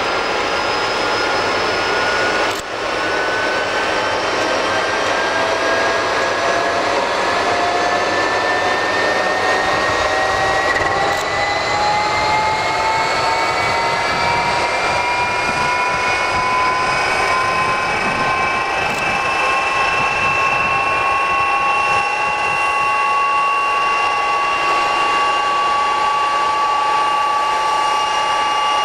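Aircraft jet engine on a railway jet-thaw truck running at high power: a loud rushing blast of exhaust with a high whine. The whine rises slowly in pitch through the first half as the engine is throttled up, then holds steady.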